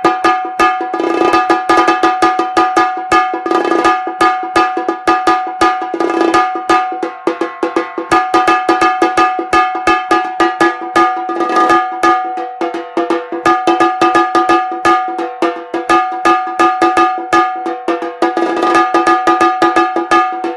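Tassa drum played with a pair of thin sticks in a fast, continuous roll of strokes, its head giving off a steady high ringing tone; the drum is being played to test its sound.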